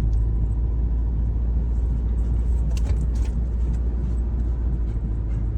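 Steady low rumble of a car driving slowly, heard from inside the cabin, with a few faint clicks about halfway through.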